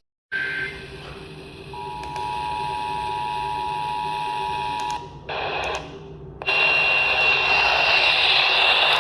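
The Emergency Alert System two-tone attention signal, two steady tones sounding together, runs for about three seconds off-air during a monthly EAS test and then cuts off. Near the end a loud, hissy broadcast with a steady high whistle comes in.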